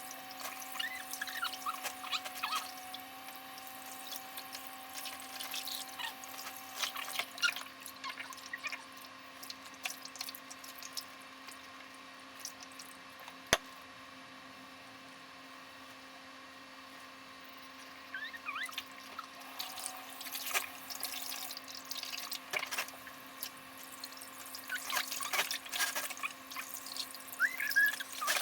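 Water splashing and dripping as a mameshiba dog is washed and shampooed, over a steady low hum. The splashes thin out for several seconds midway, with one sharp click, then pick up again towards the end.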